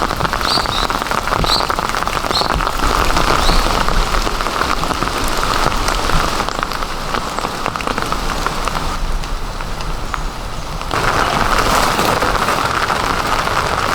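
Heavy rain falling, a dense steady hiss of many fine drop clicks. About nine seconds in the higher hiss thins for a couple of seconds, then comes back as strong as before.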